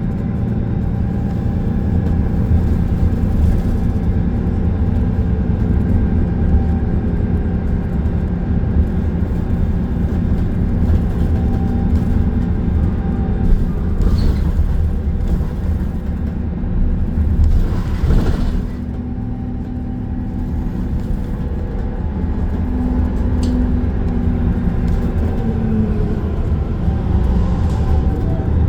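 Transit bus heard from inside the cabin while driving: a steady low engine and road rumble, with engine tones that rise and fall slightly as it speeds up and slows. A short rushing burst comes about eighteen seconds in.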